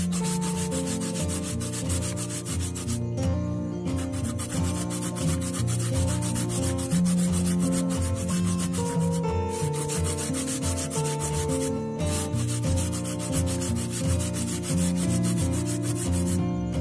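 Kencur (aromatic ginger) root being grated by hand on a grater: rapid, continuous scraping strokes with a few brief pauses, over background music.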